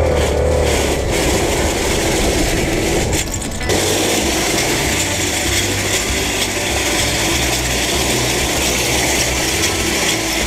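Small motorcycle engine running at low speed with a rattly, machine-like tone as the bike rolls slowly over a beach of loose shells, under a steady hiss. The sound dips briefly about three seconds in.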